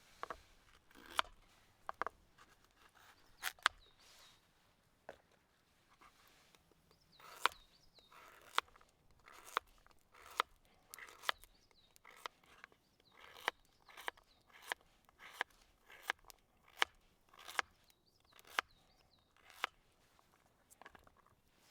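Knife cutting food on a cutting board: a series of sharp knocks with short crunching cuts between them, irregular at first, then steady at about one and a half a second.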